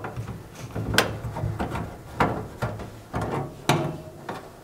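Light metallic clicks and scrapes at irregular intervals as the screw on the round sheet-metal turntable-motor access panel of a microwave's base is undone and the panel is worked loose.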